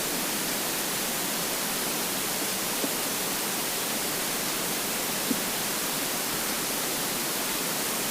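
Steady hiss from a close, highly amplified recording, with two faint, brief empty-stomach gurgles about three and five seconds in.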